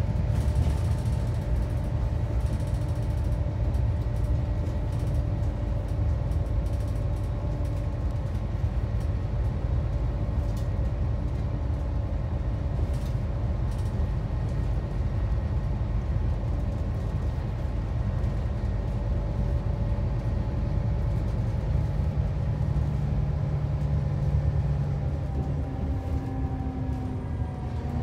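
Cabin noise of a Scania K360EB4/Irizar i6 coach on the move: steady low engine and road rumble with a constant whine of several fixed tones. Near the end the whine shifts slightly in pitch.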